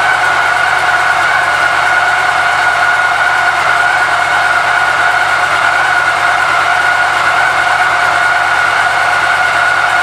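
A motor running steadily at constant speed, with a steady high whine that never changes in pitch or level.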